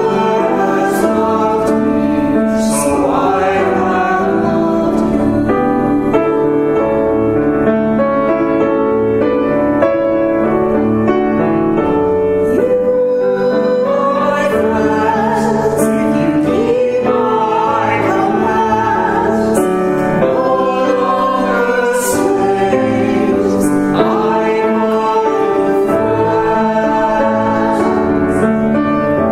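A woman cantor singing a hymn with piano accompaniment.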